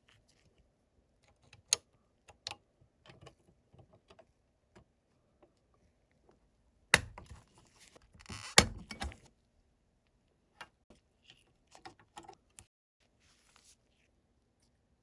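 Scattered small clicks and taps of hard objects being handled, with a short run of louder knocks and rattling about seven seconds in.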